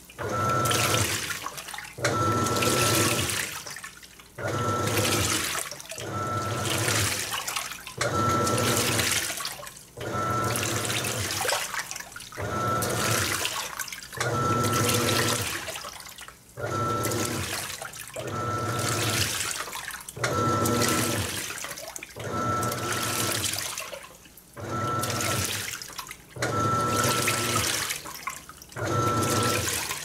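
Panasonic NA-F180P7T top-load washing machine in its wash stage, the motor driving the pulsator back and forth in regular strokes, about one every two seconds. Each stroke brings a motor hum with a steady whine and water sloshing, with a short pause between strokes.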